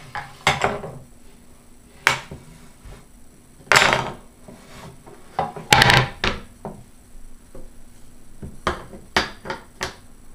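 Wooden puzzle pieces and the wooden puzzle board knocking and clattering against a wooden tabletop as a toddler handles them: irregular knocks, the loudest about four and six seconds in.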